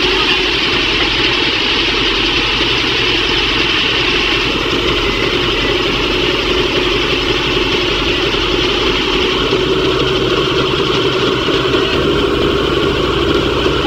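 Large truck's diesel engine running steadily, with no revving.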